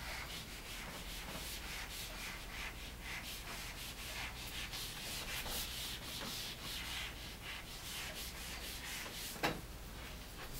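Dry-erase board eraser rubbing back and forth across a whiteboard in quick repeated strokes, wiping off marker writing. A single sharp knock sounds near the end.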